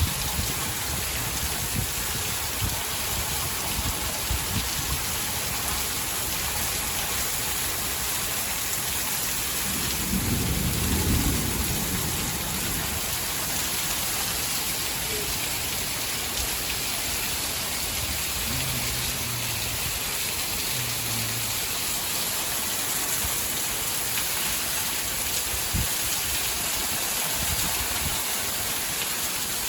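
Heavy thunderstorm rain falling steadily. A low rumble of thunder, muffled by the rain, swells about ten seconds in.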